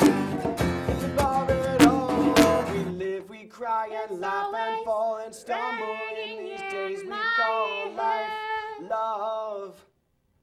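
Live acoustic guitar, hand drum and voices playing together; about three seconds in the instruments drop out and a woman's voice carries on singing alone, unaccompanied, until it ends shortly before the close.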